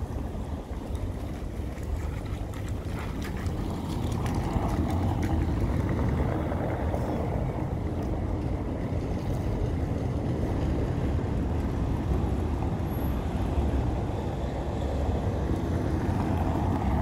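Steady low rumble of city street noise, with wind on the microphone, growing a little louder about four seconds in.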